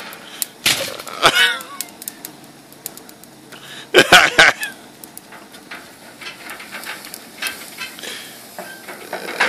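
A man's wordless vocalising: a wavering drawn-out voice sound about a second in, then a loud cry about four seconds in. Toward the end come light clinks and scrapes of a lemon half rubbed over metal gas-grill grates.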